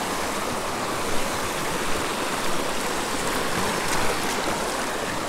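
Shallow mountain creek running over rocks: a steady rushing wash of water, with a few short soft knocks along the way.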